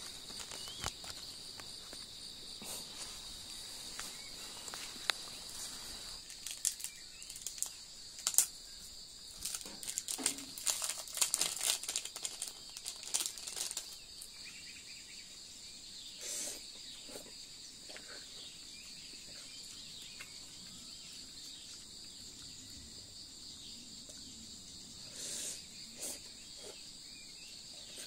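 A small plastic sachet being torn open and crinkled in a run of crackly bursts in the first half, over a steady high-pitched chorus of insects.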